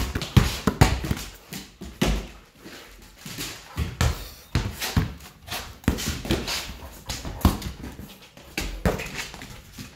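A dog, with many irregular knocks and thumps, some of them low thuds.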